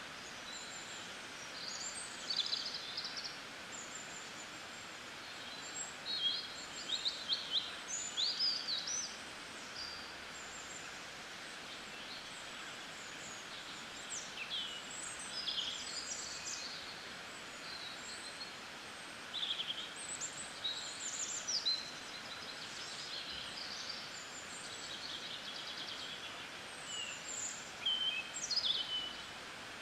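Songbirds chirping and trilling in short, scattered phrases over a steady, even hiss of rain.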